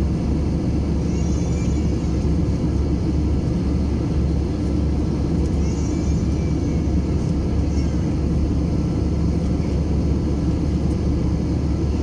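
Steady cabin noise of an Airbus A321-231 in level flight, heard inside the cabin beside the wing. The airflow and its IAE V2500 turbofan engines blend into an even low rumble.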